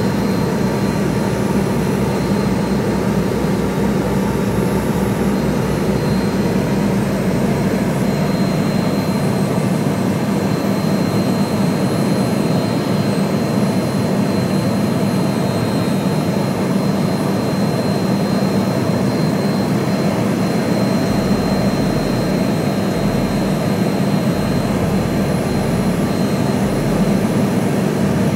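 Steady engine drone of an aircraft in flight, heard from on board: a constant low hum with a faint steady high whine above it.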